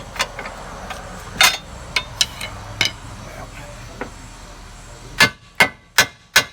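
Scattered metal clanks, then from about five seconds in a steady run of sharp hammer blows on steel, four in quick succession, each with a short metallic ring: a car's lower ball joint being knocked loose from its control arm.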